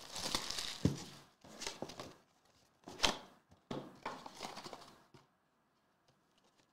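Trading-card box packaging being handled and opened: crinkling and tearing in short irregular bursts with a few sharp clicks, dying away about five seconds in.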